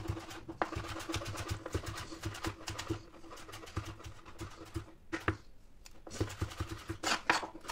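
Kitchen knife chopping rapidly on a plastic cutting board: a fast, even run of taps that breaks off briefly twice, a little before and a little after halfway.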